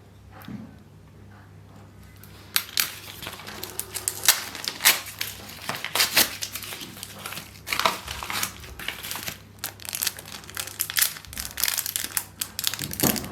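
Jewellery packaging crinkling and rustling as it is unwrapped by hand, in quick irregular crackles that start about two and a half seconds in.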